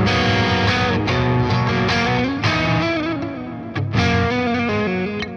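Electric guitar played with a distorted Friedman amp tone, mixing chords and single notes. The playing eases off about three seconds in, then a hard chord hits near four seconds.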